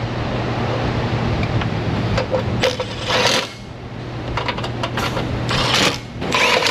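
Small metal hardware clinking and rattling as parts are handled, with several short scraping, rustling bursts. A steady low hum stops about a third of the way in.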